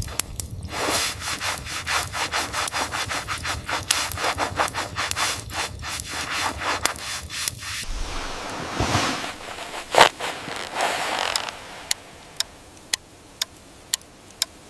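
Digging in snow: rapid, rhythmic scraping strokes for about eight seconds, then a few slower swishes and one sharp knock. Near the end come evenly spaced clicks, about two a second.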